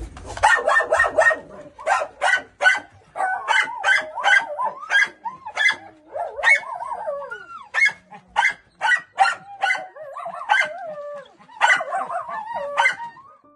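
Several dogs barking repeatedly in a dense, overlapping chorus of sharp barks. Whining, falling cries run between the barks, most clearly around the middle.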